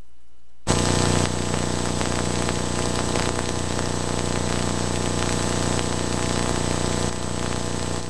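Loud hiss of static with a steady hum and a thin high whine, from the soundtrack of old VHS footage, starting suddenly under a second in.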